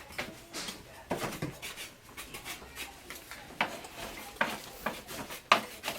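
Irregular knocks, taps and rubbing from hands and tools working at a wooden window frame, with the loudest knock near the end.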